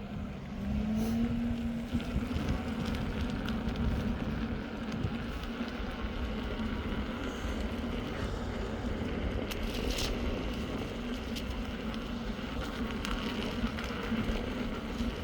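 InMotion V12 electric unicycle being ridden: the hub motor's steady whine dips and rises in pitch in the first two seconds, then holds steady over tyre and wind rumble on the microphone.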